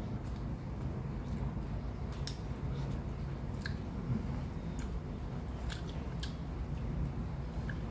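Close-up chewing of a mouthful of oven-grilled tuna jaw, with wet smacks and about half a dozen sharp clicks over a steady low hum.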